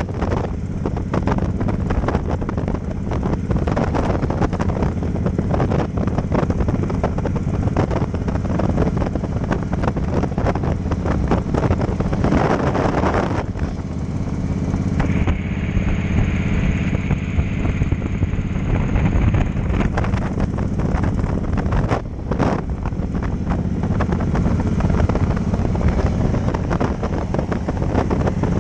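Cruiser motorcycle engine running steadily at road speed, with wind rushing over the handlebar-mounted microphone. About halfway through, a higher steady whine sits over it for a few seconds.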